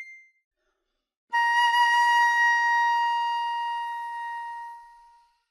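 A silver concert flute holds a single high note that starts about a second in and fades steadily away to nothing. This is a decrescendo down to silence, practised to find the point where the tone stops.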